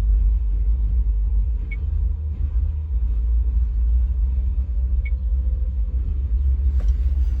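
Steady low rumble of a running car heard from inside the cabin, with two faint short high blips about three seconds apart.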